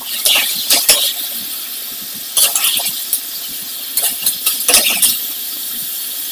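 Metal spoon clinking and scraping against a metal wok and a china plate while cooked beef rendang is scooped out, in three short bursts.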